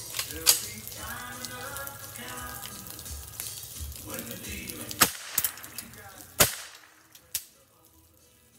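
Custom Ruger 10/22 rifle firing .22 LR rounds: three loud sharp shots, about half a second in, at five seconds and at about six and a half seconds, and a fainter crack about seven and a half seconds in. Background music with a crackling hiss runs under the first part and fades out after the third shot.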